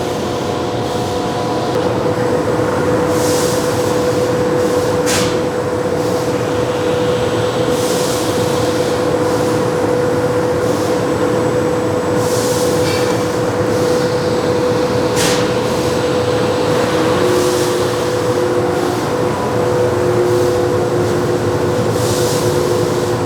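Steady mechanical drone with a held hum, broken every few seconds by short hisses.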